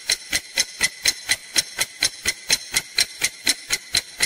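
Countdown timer ticking sound effect: evenly spaced sharp ticks, about four a second, over a faint steady hiss, counting down the five seconds given to answer.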